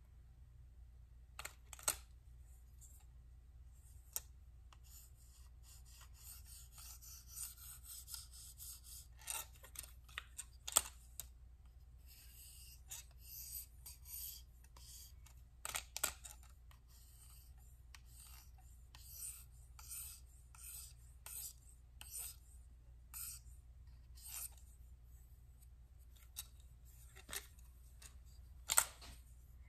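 Knife edge stroked against the hone of a KME guided sharpener: short, faint scraping rasps, roughly one a second through the middle of the stretch, with a few sharper clicks as the metal clamp and guide rod are handled.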